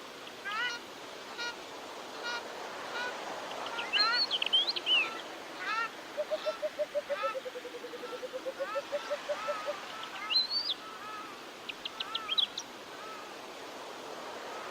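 Several birds calling over a steady background hiss. One short call repeats about once a second. Sharp high whistled notes come near the middle and again near the end. A fast, lower run of about six notes a second lasts some three and a half seconds in the middle.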